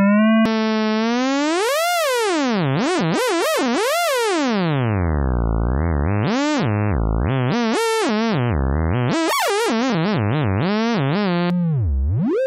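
Wavetable synthesizer app on an Android phone sounding one buzzy, overtone-rich tone whose pitch glides up and down continuously as its frequency slider is dragged. The tone colour changes with a click about half a second in and again near the end.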